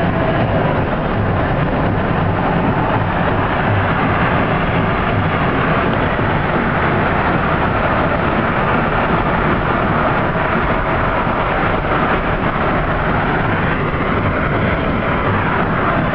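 Steady road and wind noise of a car travelling at highway speed, heard inside the cabin.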